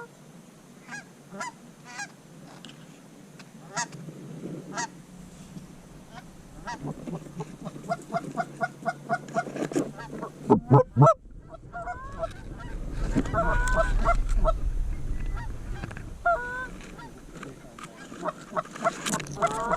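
Canada geese honking: many short calls in quick series, building to a loud burst of honks about halfway through, with a low rumble under the calls for a few seconds after.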